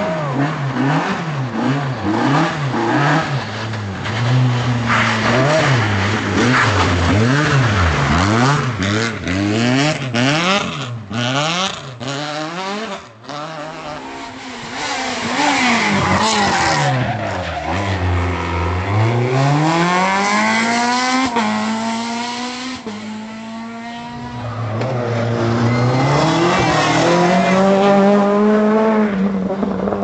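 Renault Clio R3 rally cars' naturally aspirated 2.0-litre four-cylinder engines at full throttle, revving up and dropping back again and again through quick gear shifts. There is a long climb in pitch near the middle, and the sound breaks abruptly where one car's pass cuts to the next.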